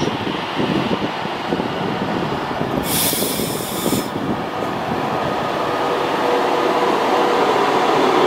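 Avanti West Coast Class 390 Pendolino electric train running into the platform and slowing past close by, its wheels and running gear rumbling. A short burst of hiss comes about three seconds in, and a steady squeal grows louder toward the end as it brakes.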